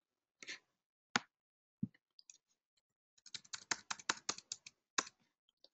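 Computer keyboard keystrokes while code is being edited: a few separate key taps, then a quick run of typing about three seconds in.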